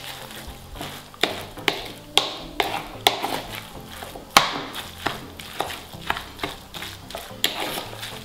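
Fork stirring a wet mixture of grated zucchini, dill and sour cream in a bowl, clicking and scraping against the bowl about twice a second.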